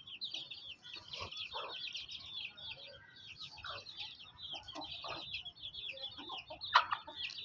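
A flock of chicks peeping continuously in quick high chirps, with hens clucking low underneath. One short, louder squawk comes near the end.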